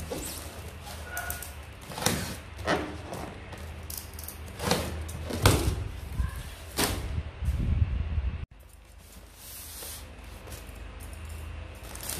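Polystyrene foam box lid being pulled off and set aside: a series of sharp scrapes, squeaks and knocks of foam on foam, the loudest about five and a half seconds in. After about eight seconds it turns much quieter.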